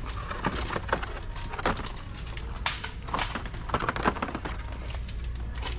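Hot Wheels blister cards clacking and rustling as a hand flips through them on metal peg hooks: a string of irregular plastic clicks and scrapes over a steady low hum.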